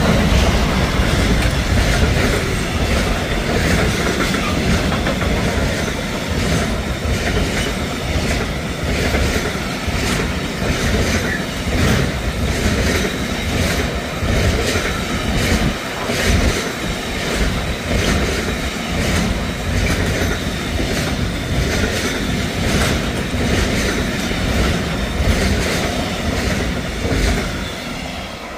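A freight train passing close by: a Siemens Vectron class 193 electric locomotive followed by a long run of wagons carrying lorry trailers, rumbling with a steady clickety-clack of wheels over the rails. The noise falls away near the end as the tail of the train draws off.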